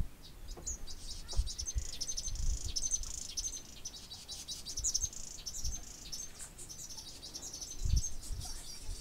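Small birds chirping in a busy chorus of quick, high, repeated calls, with a few short low thumps, the strongest near the end.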